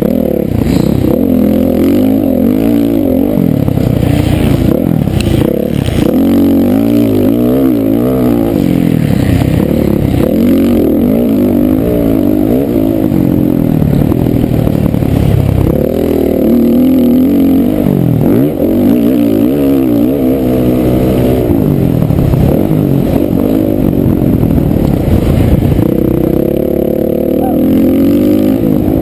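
Honda CRF450R four-stroke single-cylinder motocross engine at race pace, the revs climbing and dropping over and over with the throttle and gear changes. A few knocks come about five seconds in.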